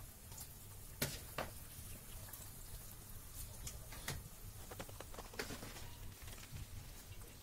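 A metal spatula clicking and tapping against the pot and enamel bowl as blanched red peppers are lifted out of the hot marinade: a few sharp, scattered clicks over a steady low hum.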